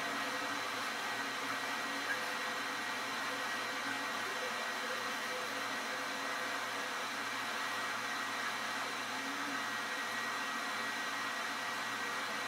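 Steady background hiss with a faint constant hum, unchanging throughout, typical of a fan or the recording's own noise in a small room.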